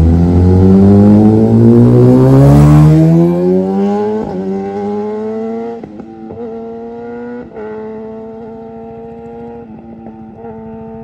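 Kawasaki ZX-10R's 998 cc inline-four, on a full-system aftermarket exhaust, accelerating hard in a flyby: the revs climb steeply and it is loudest as it passes about two to three seconds in. It then fades as it rides away, the revs climbing and dropping back at each of several upshifts.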